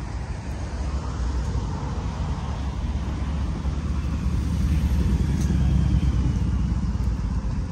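Low outdoor rumble that swells through the middle and eases slightly near the end.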